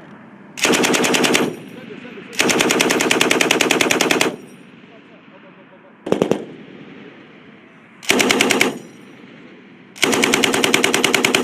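Belt-fed machine gun firing five bursts of automatic fire. The second and last bursts are the longest, and a very short burst comes about halfway through.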